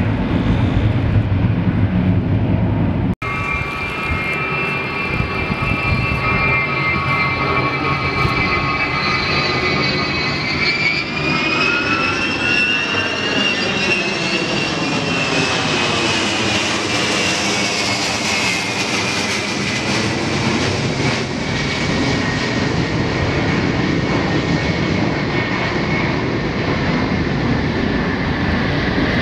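Xian Y-20 military transport's four turbofan engines during a low display pass: steady jet noise with a high whine that rises and then slowly falls in pitch as the aircraft banks past, with a swirling, phasing quality in the middle. A brief dropout comes about three seconds in.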